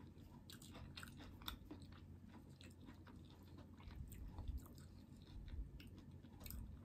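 Faint chewing of a mouthful of food close to the microphone, with scattered small wet mouth clicks.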